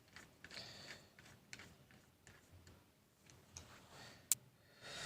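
Faint, scattered small ticks and clicks of a screwdriver and tiny screws being worked on a laptop's internal fan screws, with one sharper click about four seconds in.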